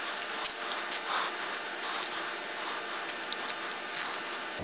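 Light handling noise of small plastic parts: a few scattered clicks and rustles as cable ties are fitted around a resistor on a chopstick, over a steady hiss.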